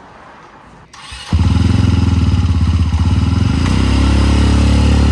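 A motorcycle engine starts about a second in and runs with a rapid, even firing beat. A little past the middle its pitch shifts slightly higher.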